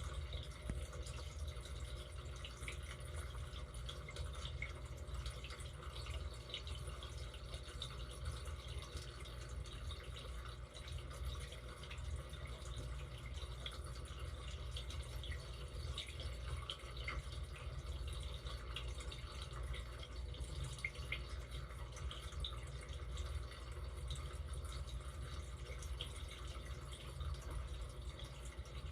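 Dishwasher running, with a steady low hum from its pump motor under water spraying and dripping inside the tub, full of small irregular spatters.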